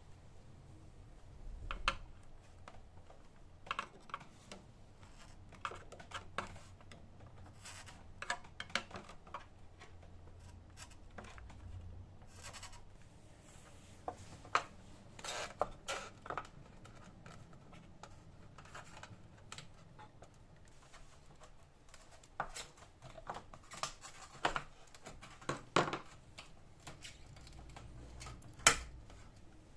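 Irregular clicks, taps and scrapes of hard parts and tools being handled during a repair, over a faint low hum. The sharpest knock comes near the end.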